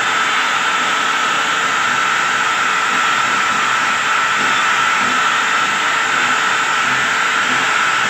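Electric drill spinning a wire cup brush against the rusted sheet-steel edge of a refrigerator cabinet, stripping off the rust before painting: a steady high motor whine over a continuous scraping hiss.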